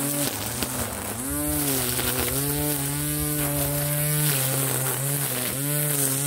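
String trimmer (weed eater) running at high speed, its motor pitch sagging and climbing back a few times as it works.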